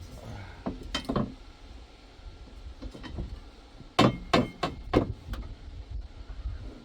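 Steel gate frame pieces being knocked into place: a couple of knocks early, then a quick run of about five sharp metallic knocks around the middle.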